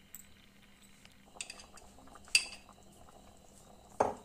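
Metal kitchen utensils clinking a few times: a light clink about a second and a half in, a bright ringing clink a second later, and a heavier knock near the end. Under them is the faint bubbling of a simmering curry.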